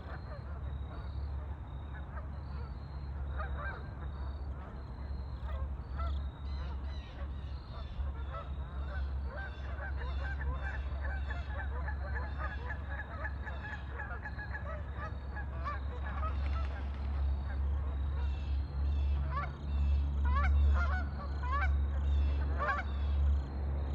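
A flock of waterfowl on a lake calling: many short honking and quacking calls overlapping throughout, growing busier near the end, over a steady low rumble.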